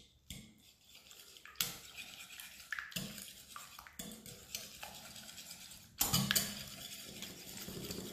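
Wire whisk beating egg, oil and cream cheese in a glass bowl, the wires scraping and clicking against the glass in uneven strokes. It gets louder about six seconds in.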